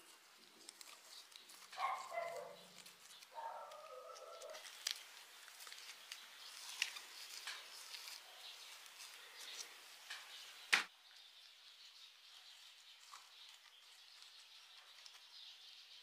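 Faint clicks and light scrapes of small stones and moss being handled among rocks, with one sharper click about eleven seconds in. A short animal call sounds twice in the first few seconds.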